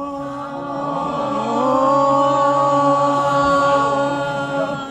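A group of men's and women's voices holding one long note together under a concrete bridge, sung to make it echo; the note swells louder about two seconds in and ends near the end.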